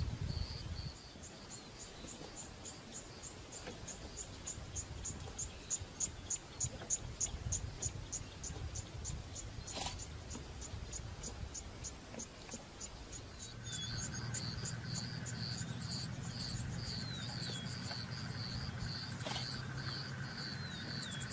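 Insects chirping in a fast, even rhythm of about four high chirps a second over a low rumble. About two-thirds of the way through, a steady low hum joins in.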